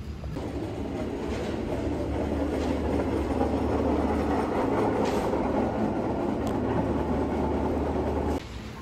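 Metal shopping trolley rolling across a store floor, its wheels and wire basket rattling steadily, heard close up from inside the trolley. The rattle starts just after the beginning and stops suddenly near the end as the trolley halts.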